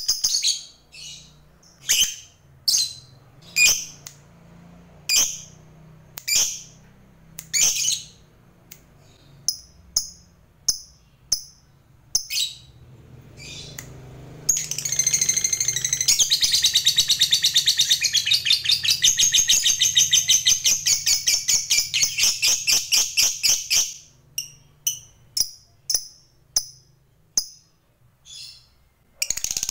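Lovebird calling: sharp single high chirps spaced about a second apart, then about halfway through a long unbroken rapid chattering trill of nearly ten seconds, the 'ngekek' long trill prized in fighter lovebirds. After it come single chirps again, and the trill starts up once more at the very end.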